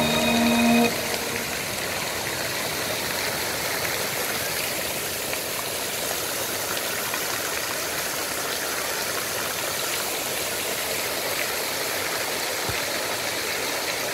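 Fountain jets spraying and splashing into the pool: a steady rushing of falling water. Music cuts out about a second in, leaving only the water.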